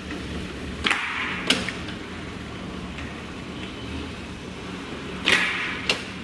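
DSG-390B hot-air paper laminating machine running with a steady low hum. Twice, about four seconds apart, a brief swish is followed about half a second later by a sharp snap.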